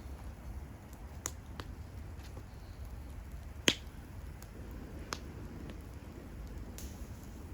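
Wood campfire crackling: scattered sharp pops, the loudest a little past halfway, over a low steady rumble.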